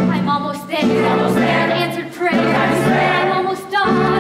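A musical theatre chorus singing over musical accompaniment, in phrases broken by short breaths about every second and a half.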